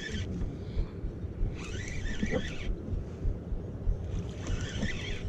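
Spinning reel being cranked to reel in a hooked fish, whirring in three short spells of about a second each, over low wind and water noise on the microphone.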